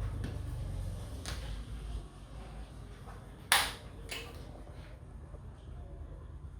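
Sharp cracks during a barber's head massage: one loud crack about halfway through, a fainter one half a second later, and a softer one about a second in, with low rubbing under the first two seconds.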